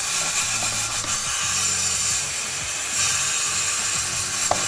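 Power grinder abrading rust off a steel exhaust pipe around the oxygen-sensor bung: a steady, harsh grinding noise that runs without a break.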